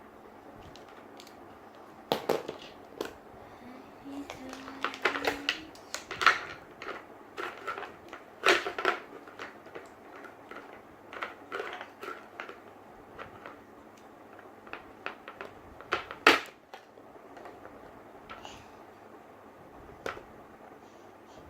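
Plastic Play-Doh toys and tools being handled: irregular clicks, taps and knocks, the loudest about 16 seconds in, over a faint steady hum.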